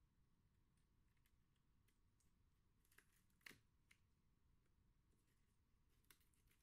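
Near silence, with a few faint, short clicks and rustles from handling model railway track and foam board, the sharpest about halfway through.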